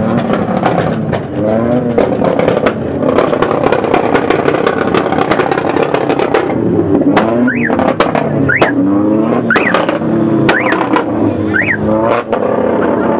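A modified Proton Satria's engine being revved hard through its exhaust. The revs climb and drop in pitch over and over, settling into quick blips about once a second in the second half. Sharp cracks are scattered through it.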